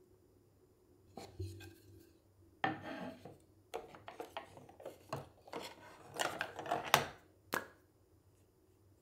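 Hands rummaging in a round lidded storage box: light knocks, clicks and rustles as the lid is handled and small tubes of lip balm are picked out, with the sharpest knock about seven seconds in.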